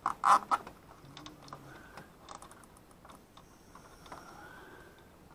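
Hands handling plastic-sheathed wires and connectors: a quick cluster of sharp clicks and rattles at the start, then faint scattered ticks.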